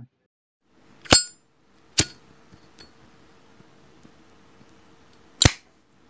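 Metal Zippo lighter lid clicking: a ringing metallic clink about a second in, a sharper click a second later, and a last loud snap near the end.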